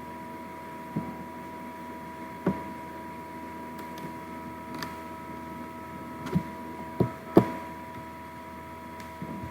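Scattered clicks and light knocks, the sound of a computer mouse being clicked and handled on a desk. There are about eight in all, two close together being the loudest near the end. Under them runs a steady electrical hum with a high whine.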